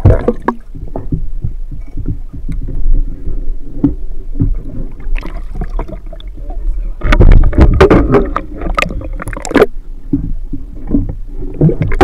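Water sloshing and splashing around a camera that dips in and out of the water, with muffled underwater noise while it is submerged. The splashing grows heavier about seven seconds in and eases again near ten seconds.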